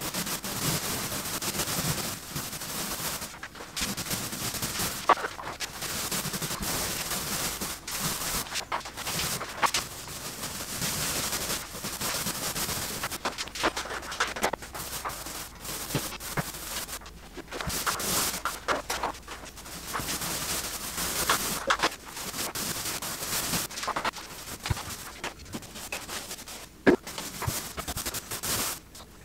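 Paint roller loaded with primer rolling over a wall: a sticky, crackling hiss that comes in repeated strokes, each a second or two long.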